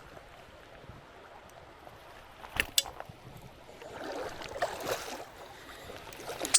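Creek water splashing and sloshing, with two sharp clicks about two and a half seconds in and a louder spell of splashing about four seconds in.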